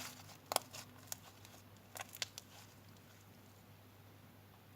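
Slime being handled and stretched: a few faint soft clicks and small pops, mostly in the first half, then near quiet.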